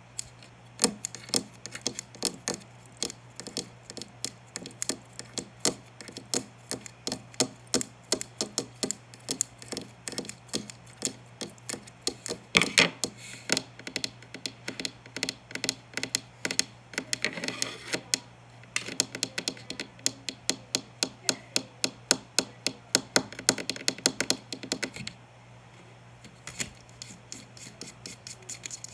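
A fast, irregular series of sharp taps and clicks, several a second, pausing briefly twice, over a faint steady hum.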